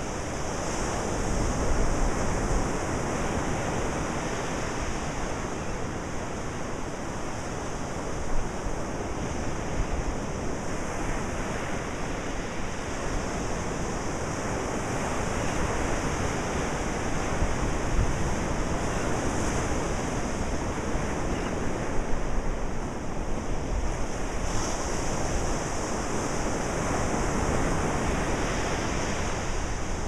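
Ocean surf: waves breaking and washing ashore in a continuous rush that gently swells and eases.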